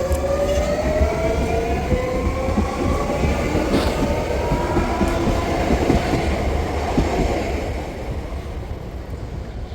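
Electric commuter train pulling away: a whine of several tones rising slowly in pitch over a steady low rumble with wheel clatter. It grows fainter near the end.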